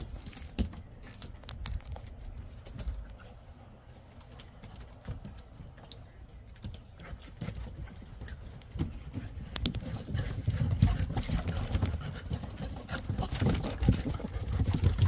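Golden retriever puppies' paws and claws on wooden deck boards as they run and scuffle: many quick clicks and thumps, getting busier and louder from about ten seconds in.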